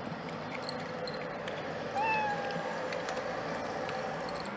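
A cat eating from a bowl, filmed close up, with one short meow about two seconds in.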